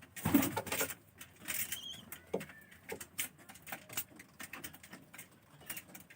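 Pigeons shuffling about, with a run of light scratching, clicking and pattering sounds and a couple of brief high chirps.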